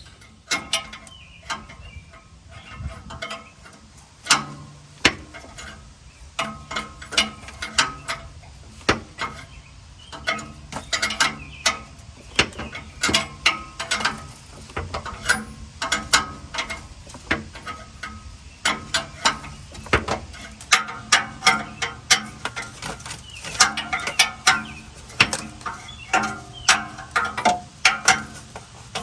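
Open-end wrench clicking and clinking on an oxygen sensor's hex as the sensor is turned into the exhaust pipe: many short, sharp metallic clicks, some with a brief ring, coming irregularly and more often in the second half.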